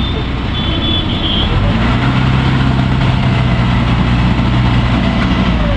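Water-taxi boat engine running steadily with a low hum, growing louder and steadier about two seconds in.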